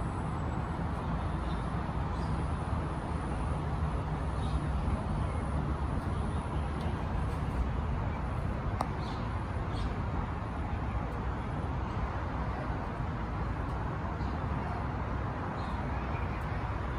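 Parked fire trucks' diesel engines idling: a steady low rumble.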